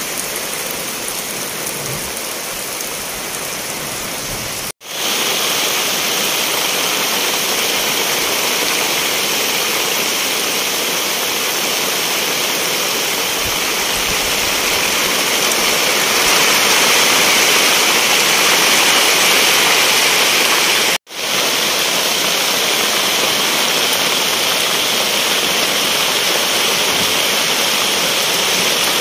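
A steady rush of water, like heavy rain or a fast stream. It cuts out abruptly for an instant twice, about five seconds in and again about twenty-one seconds in, and comes back a little louder after the first break.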